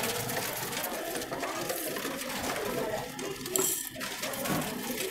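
Dry pigeon feed grain rattling with many small clicks as it is scooped by hand from a plastic bag, the bag rustling in short bursts about two seconds in and again near three and a half.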